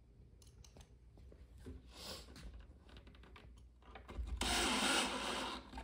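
Cordless drill-driver running a screw into the side panel of a white shelf unit, loud for about a second and a half starting about four seconds in; the screw is driven only partway, just enough to hold the shelf. Before it come light clicks from handling the screws and the drill.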